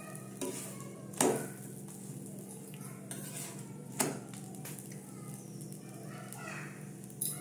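Metal spatula clacking and scraping against an iron tawa as a paratha is pressed and flipped, with loud sharp clacks about a second in and again about four seconds in, and lighter knocks at the start and near the end. A steady low hum runs underneath.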